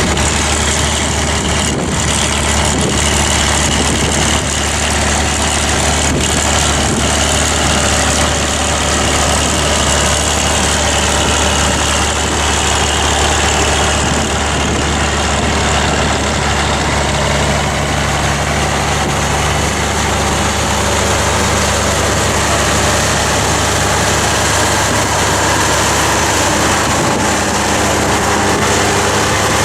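Diesel tractor engine running steadily while pulling a plough.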